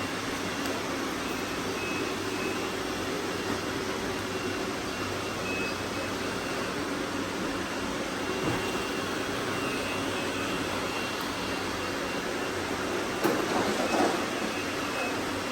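Robot vacuum cleaners running with a steady whirring noise, with a few louder knocks and rattles near the end.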